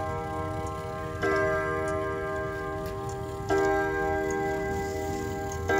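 Gustav Becker wall clock striking on its gong rods: three blows about two and a quarter seconds apart, each a ringing chord of several tones that dies away slowly, with the clock ticking beneath.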